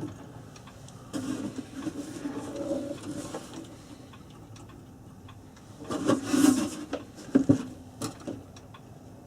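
Small-part handling on a clock at the workbench, with the hands being tightened and the clock moved: rubbing and scraping, a louder rustling clatter about six seconds in, then a couple of sharp clicks.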